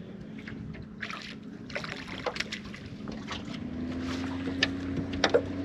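Water lapping and slapping against the hull of a bass boat, with scattered light knocks. A steady low hum joins about three and a half seconds in.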